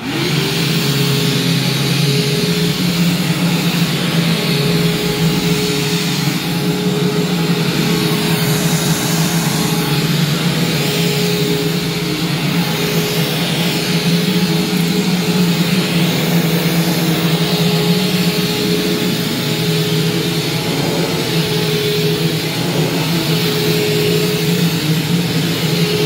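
Hoover Preferred (Spirit) U5018 upright vacuum cleaner switched on, its motor spinning up to speed within about half a second. It then runs steadily while pushed over carpet, a constant whine over a rush of air.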